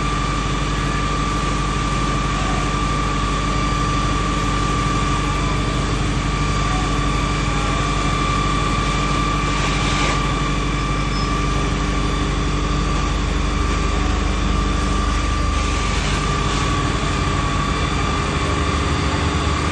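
Steady engine-like drone with a constant high whine over it, holding one pitch, with a brief swell of hiss about halfway through.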